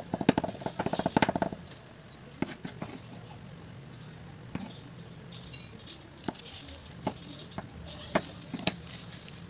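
Chef's knife chopping minced garlic on a wooden cutting board: a fast, even run of knocks that stops about a second and a half in. After a quieter stretch, a few separate knocks of the knife cutting a small red onion on the board near the end.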